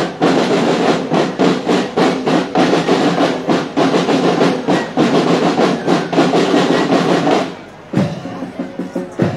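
Marching drum band (banda de guerra) playing a rapid march beat on snare and bass drums. The drumming stops about three-quarters of the way through, followed by a couple of single drum strikes.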